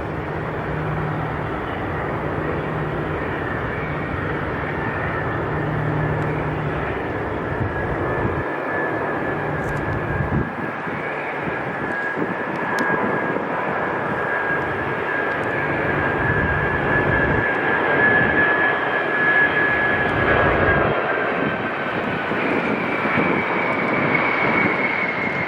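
Ilyushin Il-96-300 jet airliner landing, its four PS-90A turbofans running with a steady rushing noise and a whine. The whine sinks slightly in pitch and then gives way to a higher whine near the end, and the sound grows a little louder past the middle.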